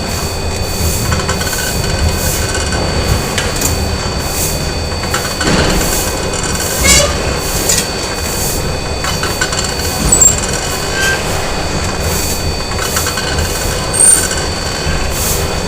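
Factory machinery running: a steady mechanical din with a couple of constant high whines and a rhythmic clatter about twice a second, broken by louder metal clanks and brief high squeals about six, ten and fourteen seconds in.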